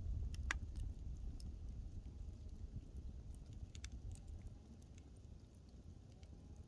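Wood fire crackling: irregular sharp pops and snaps over a low rumble from the burning, with one louder pop about half a second in.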